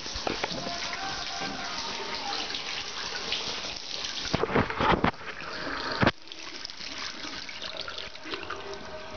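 Water running from a bidet's tap into its porcelain bowl, with a few knocks near the middle. The flow drops off sharply about six seconds in and a fainter trickle goes on.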